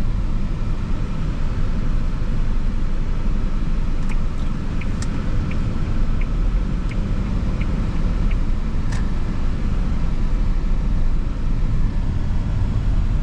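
Road noise inside a moving car: a steady low rumble of engine and tyres. In the middle comes a short run of light, evenly spaced ticks, roughly one every 0.7 s.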